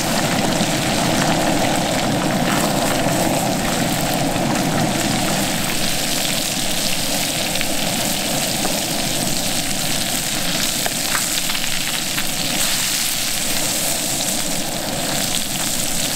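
Skin-on whitefish fillet sizzling steadily in a hot pan, a dense crackling hiss.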